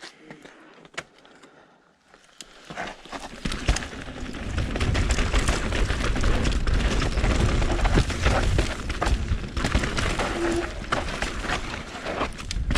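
Downhill mountain bike riding down a dirt trail: a few light clicks at first, then from about three seconds in a steady rush of tyre noise and wind on the microphone, with the bike rattling and knocking over bumps.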